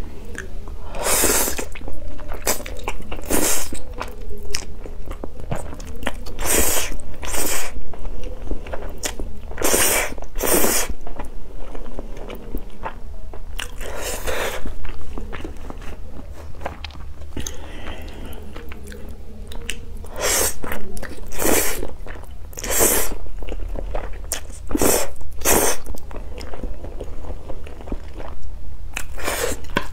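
A person slurping and chewing spicy instant fire noodles: loud short slurps every second to few seconds, with chewing in between.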